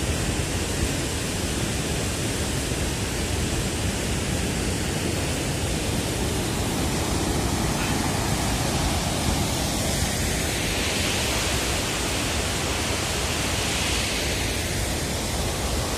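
Water rushing out of a concrete dam sluice as churning white water, a steady, even rush.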